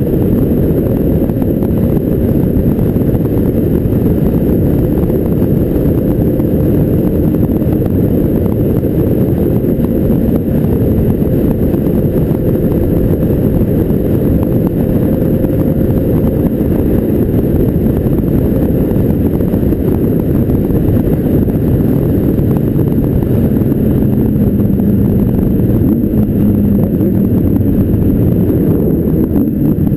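Motorcycle riding steadily at road speed, heard from a camera on the bike: a heavy rumble of wind on the microphone over the engine's steady drone. The engine note falls slightly near the end.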